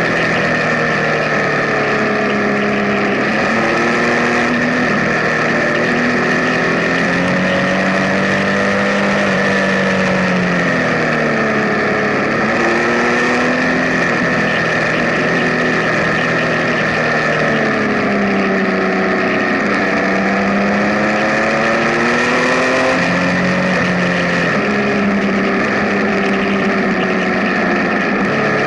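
Benelli Tornado Tre 1130 TNT Café Racer's inline three-cylinder engine running under way, its pitch climbing and dropping several times as the throttle is opened and closed.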